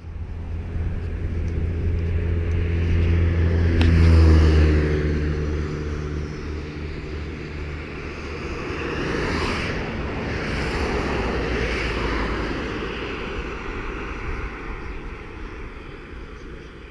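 Road traffic going by on a provincial road: a vehicle's deep engine drone grows louder, passes about four seconds in and fades, then cars hiss past on their tyres, two or three of them, around ten and twelve seconds in.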